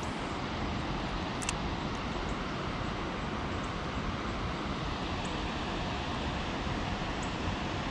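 Steady rushing noise, even and unbroken, with one sharp click about a second and a half in.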